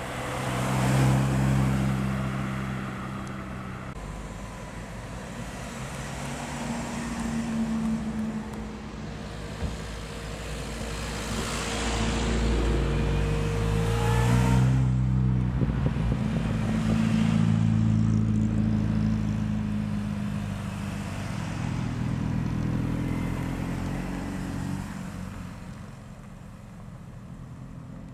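A string of MINI convertibles driving slowly past one after another, their four-cylinder petrol engines swelling as each car nears and fading as it leaves. Loudest about a second in and through the middle, where one engine revs up as it pulls away.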